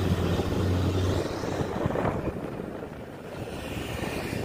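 A Hino truck with a long cargo body driving past close by. Its engine drone drops away about a second in, leaving tyre and road rush that fades as it moves off.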